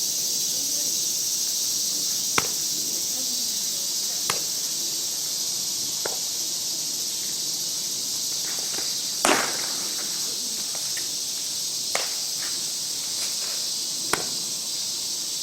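Steady high-pitched insect chorus, with a sharp crack about every two seconds as softballs are struck with a bat during batting practice; the loudest crack comes a little past the middle.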